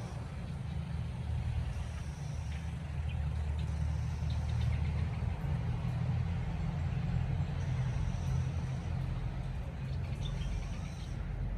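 Low, steady engine-like rumble, with a faint high buzzing note about a second long that comes back every two to three seconds.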